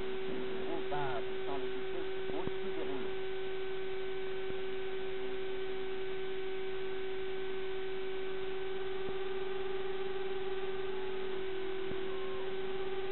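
A steady hum held at one pitch over a constant hiss. Faint wavering voice-like sounds come through during the first three seconds.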